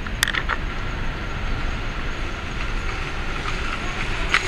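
Steady low road-traffic rumble at a street crossing, with a sharp click just after the start and a short burst of noise near the end.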